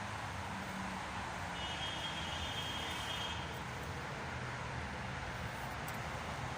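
Steady low rumble of distant traffic, with a faint high whine for about two seconds starting a second and a half in.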